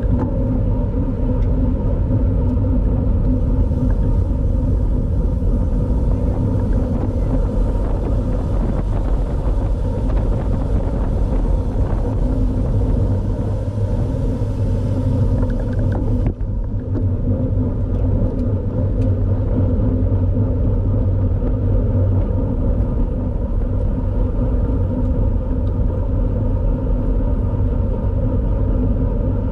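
Steady wind and road rumble from riding a road bike at race speed, with wind buffeting the microphone and tyres humming on the pavement. A high hiss on top drops away about halfway through.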